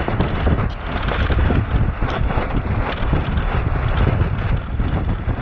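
Wind buffeting the microphone of a sailboat under way, a loud, gusty, unbroken rushing with the wash of water along the hull beneath it.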